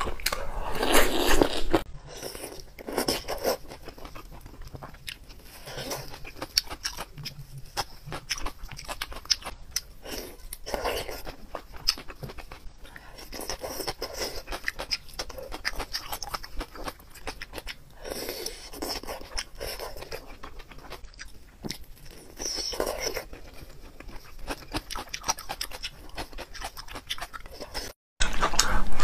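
Close-miked eating sounds: a loud bite and chewing near the start, then steady chewing, sucking and lip-smacking on sauce-covered shrimp, with many small mouth clicks.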